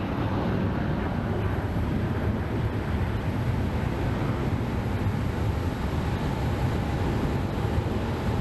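Jet aircraft departing at takeoff power: a steady, loud engine rumble, with a faint steady whine joining about five seconds in.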